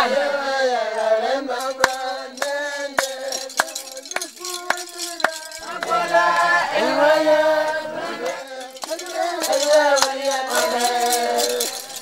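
Group of men chanting and singing in phrases, with sharp percussive clicks keeping a beat about twice a second during the first half.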